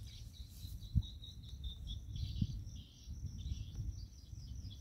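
Insects chirping in a steady high-pitched pulsing trill, over a low rumble of wind on the microphone, with one short knock about a second in.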